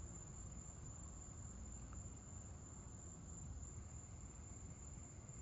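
Faint night insect chorus: crickets trilling in one steady, high-pitched band, over a low rumble.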